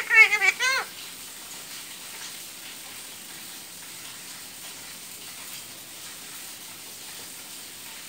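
Alexandrine parakeet giving a quick string of four or five short, loud calls that bend up and down in pitch, all within the first second; after that only a steady faint hiss.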